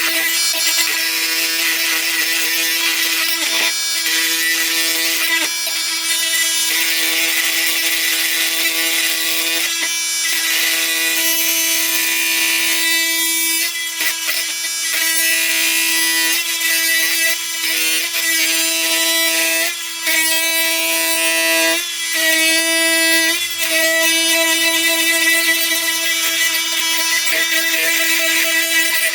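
Flex FX4111 24-volt cordless oscillating multi-tool running on its high setting, buzzing at a steady pitch with a harsh high-pitched grinding as its blade works through a 4-inch Grip-Rite fastener. The blade is dull, so the cut goes slowly. The buzz dips briefly a few times.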